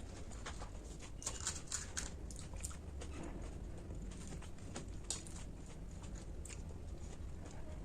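Close-up chewing and crunching of pani puri, with a cluster of crisp crackles between about one and three seconds in and a few more later, over a steady low hum.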